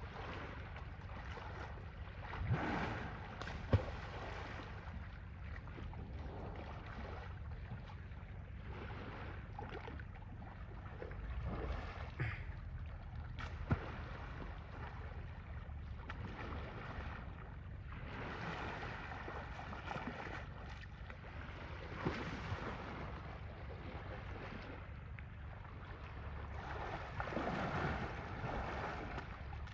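Water sloshing and splashing as elephants bathe in a pool, rising in swells every several seconds, over a steady rumble of wind on the microphone. A few short sharp knocks stand out.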